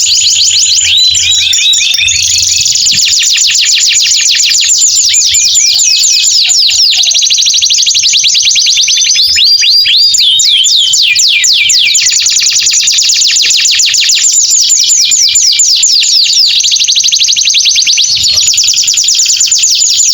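Male domestic canary singing a long unbroken song of fast trills: rapid runs of high, downward-sweeping notes that switch to a new phrase every few seconds.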